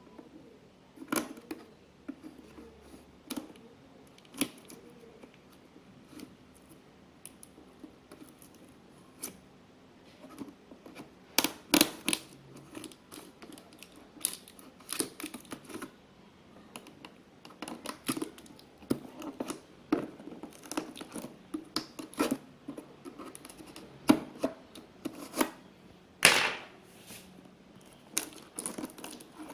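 Cardboard laptop box and its packaging being opened and handled: irregular knocks, scrapes and rustles, with a longer tearing sound near the end.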